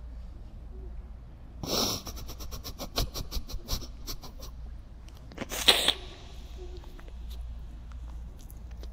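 A man weeping without words: a sharp sniffing sob about two seconds in, a run of quick catches and clicks of breath, then a louder sniff near the six-second mark, over a steady low hum.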